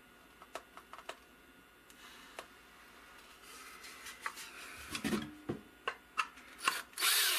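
Light clicks and knocks from wood and tools being handled on a workbench while the shelf is set in place for screwing, with a few short, louder bursts of noise near the end.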